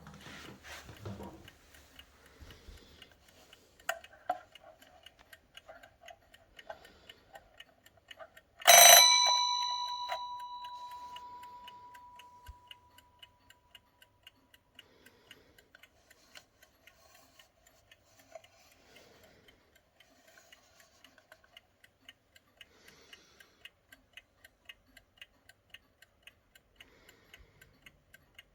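Vintage wind-up alarm clock ticking quickly and steadily, with its bell struck once about nine seconds in and ringing out over a few seconds. There are handling knocks and rustles near the start.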